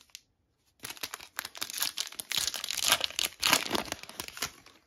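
Foil wrapper of a Panini Flux trading card pack being torn open and crinkled by hand, a dense crackling that starts about a second in and stops near the end.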